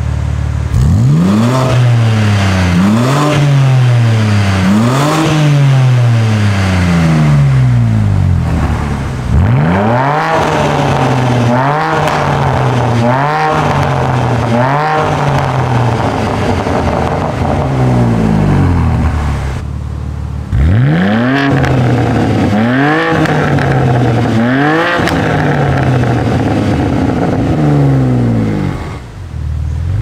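BMW G80 M3 Competition's twin-turbo straight-six revved repeatedly at a standstill: sharp throttle blips that rise and fall back, at times held in quick succession. The car is heard first on its stock exhaust and then on an Fi Exhaust valvetronic catback with the valves open in sport mode, which reads much louder on the meter.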